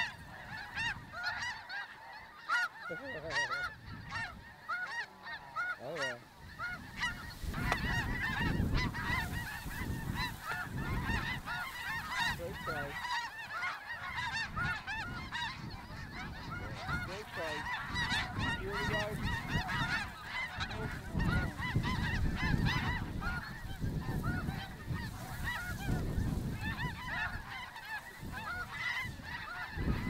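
A large flock of snow geese calling overhead: a dense, continuous chorus of many overlapping high honks. A low rumble joins underneath from about seven seconds in.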